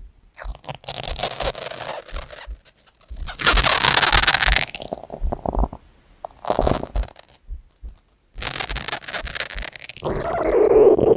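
Stomach growling: a string of gurgling rumbles in several separate snippets, broken by short silent gaps, with a drawn-out pitched rumble near the end.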